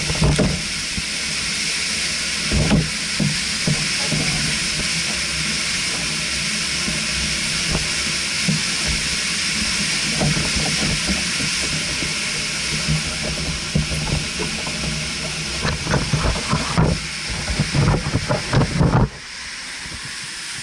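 Steady rushing hiss of water flowing through a lake's outflow structure, with a few low knocks and bumps, more of them in the last few seconds. The hiss drops away abruptly about a second before the end.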